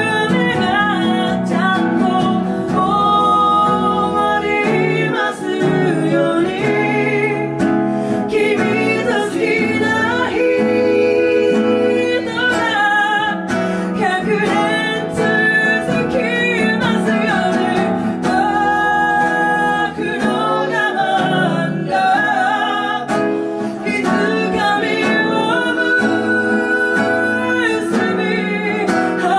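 A woman singing with two acoustic guitars accompanying her, a live acoustic performance.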